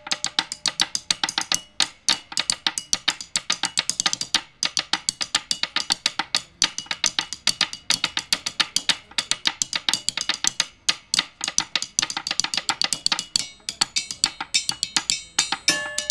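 Square metal tube sections struck rapidly with mallets and wooden sticks by two players. The hits come thick and irregular, each one a sharp metallic knock with a short ringing note.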